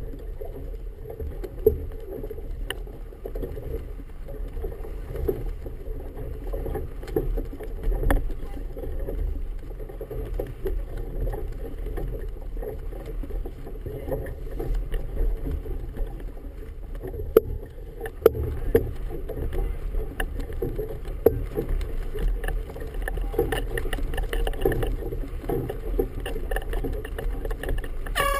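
Choppy water slapping and lapping against the hull of an anchored boat, with wind buffeting and scattered small knocks. A horn blast starts right at the end.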